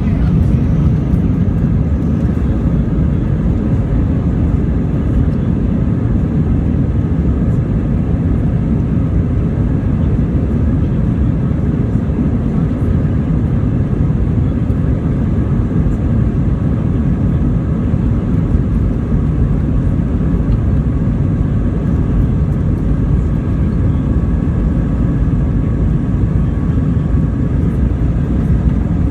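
Steady jet engine and airflow noise heard inside the cabin of an Airbus A320-family airliner, a loud low rumble with faint steady whining tones.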